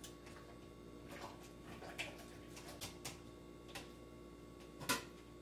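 Faint, scattered light clicks and taps of a spoon stirring a peach-yogurt mix in an ice cream maker's freezer bowl, over a steady low hum.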